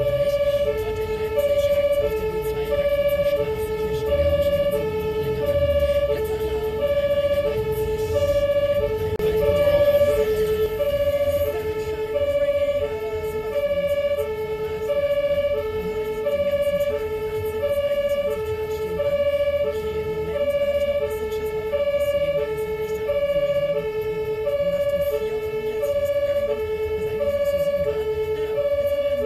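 German two-tone emergency siren (Martinshorn) of an ambulance, heard from inside the vehicle, switching evenly between a low and a higher tone about every two-thirds of a second. Engine and road rumble underneath.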